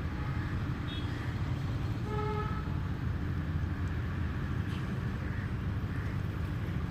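Steady low rumble with a short horn toot about two seconds in.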